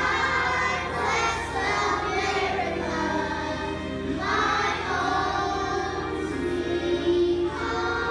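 A group of young first-grade children singing a song together.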